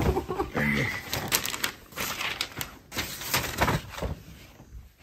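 Close-up handling noise: a run of clicks, taps and rustles as a cardboard box and a tablet are moved about, with a short voice sound under a second in.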